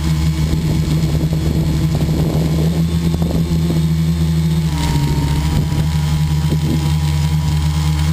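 Radio-controlled model aircraft engine running steadily close to the microphone, a constant droning hum. Its pitch shifts slightly about five seconds in.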